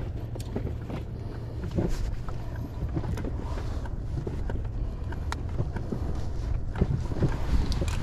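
Wind buffeting the microphone with a steady low rumble, over which come scattered light clicks and knocks as fishing gear is handled.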